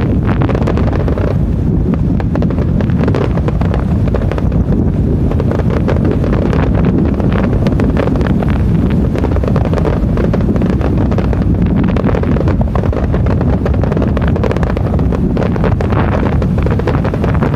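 Wind buffeting a smartphone microphone in a steady low rumble. Scattered pops and crackles from a fireworks display come through it.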